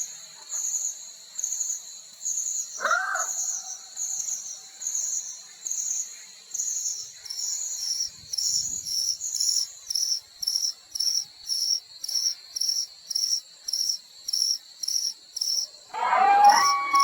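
Night insects, crickets, calling: a steady high trill with a regular pulsed chirp that quickens to about two a second. Near the end a long howl begins, falling in pitch and then holding steady, louder than the insects.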